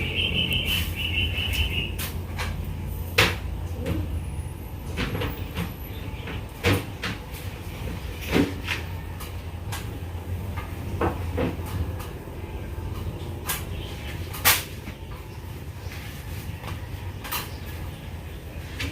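Irregular sharp clicks and knocks over a steady low hum, with a brief pulsing high-pitched chirping in the first two seconds.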